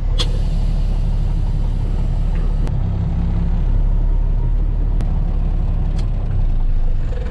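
A vehicle engine running with a steady low rumble, with a few faint clicks over it.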